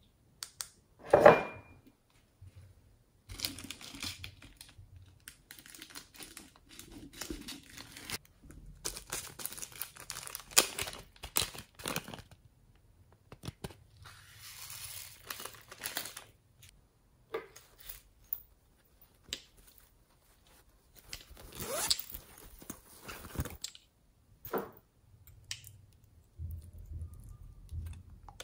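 Close-miked handling of small plastic containers over a dish of slime: irregular clicks, scrapes and crinkling, with one sharp knock about a second in. Around the middle, a longer rustle as sequins are tipped from a small plastic cup onto the slime.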